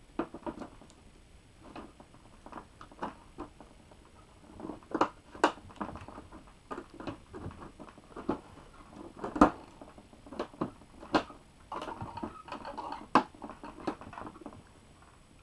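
Plastic front bezel of a Samsung LED TV being handled and pressed into place over the panel: scattered light clicks, taps and rubbing of plastic, with a sharper knock about nine seconds in and a busier run of clicks a few seconds later.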